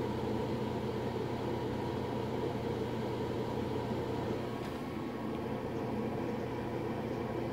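Cooling blower of an 8877 (3CX1500) tube VHF power amplifier running steadily, a constant whir with a low hum, the amplifier idling in standby with its high voltage up.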